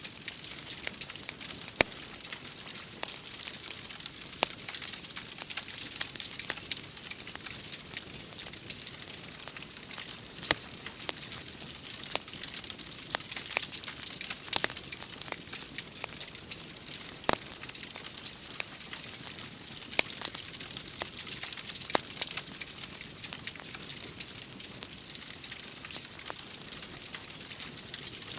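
Wood fire crackling, with irregular sharp pops and snaps over a steady rain-like hiss.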